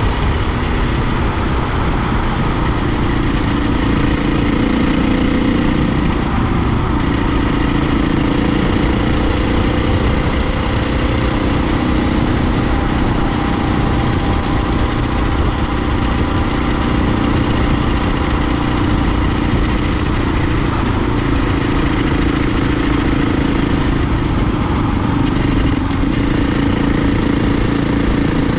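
Husqvarna dirt bike's engine running under way at a steady cruise, its note rising and falling slightly with the throttle, over a constant rush of wind noise.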